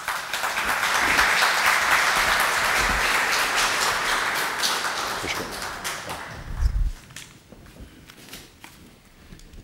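Audience applauding, dying away about seven seconds in, with a short low thump as it ends; then only a few faint clicks.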